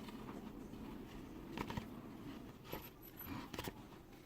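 A few light clicks and taps from handling an empty plastic soda bottle and a marker, over faint room noise.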